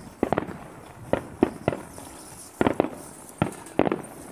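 Aerial firework shells bursting: about a dozen sharp bangs at irregular intervals, some coming in quick pairs and triples.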